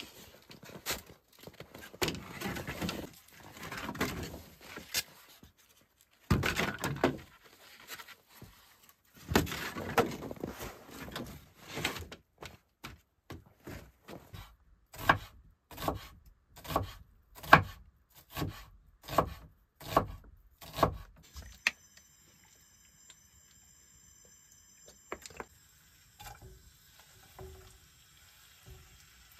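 Wooden slabs and boards being handled and stacked under a log hut: scraping and shuffling at first, then a run of sharp wooden knocks about one a second. After about 22 s it falls quiet, leaving only a faint steady high hum.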